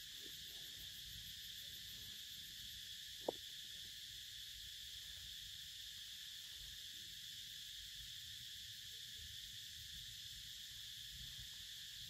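Steady insect chorus, a constant high-pitched drone, with one sharp click a little over three seconds in.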